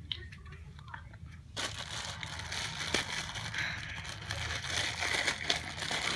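Crinkling and rustling of plastic packaging handled close to the microphone, starting about a second and a half in and going on steadily, with many small crackles.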